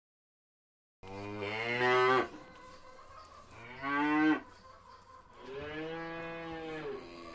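Cattle mooing: after about a second of silence, three calls, two louder ones followed by a longer, quieter one, with another beginning near the end.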